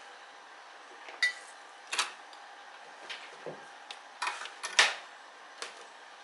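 Handling noise: a handful of sharp clicks and knocks as cables and connectors are picked up and moved about on the open delay unit's metal chassis, the loudest a little before the end.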